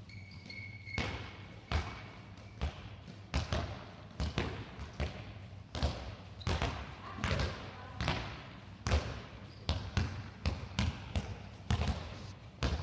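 Handballs slapping into hands and bouncing on a sports-hall floor in quick, irregular succession, echoing in the hall. A short high squeak near the start.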